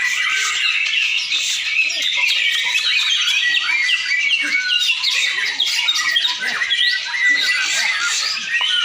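Several white-rumped shamas singing at once, a dense, continuous tangle of fast chirps, whistles and trills.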